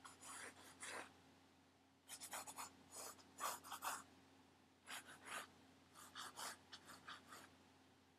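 Pencil drawing on paper in a drawing pad: short, light strokes in quick runs of several at a time, with short pauses between runs.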